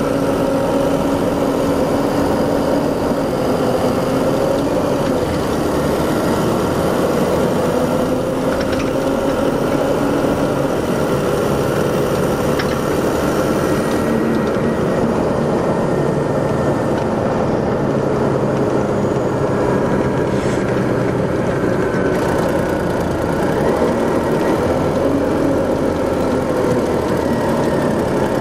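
Detroit Diesel Series 60 EGR diesel engine of a 2001–03 MCI D4500 commuter coach running steadily, its pitch drifting gently up and down.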